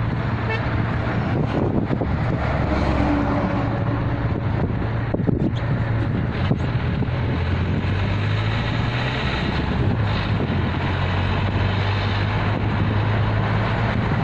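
A car travelling along a road: a steady engine drone and road noise, with wind on the microphone.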